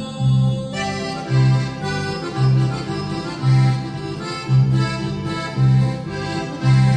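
Instrumental break in a regional Mexican song: an electric bass plays low notes about once a second under a sustained melody line.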